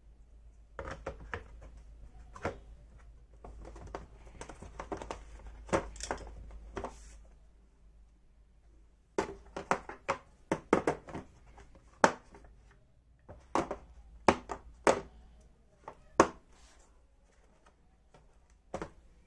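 Hand tools such as screwdrivers being pulled from and pushed back into the slots of a moulded plastic tool case: irregular plastic clicks and clacks, with a rustling sound through the first half.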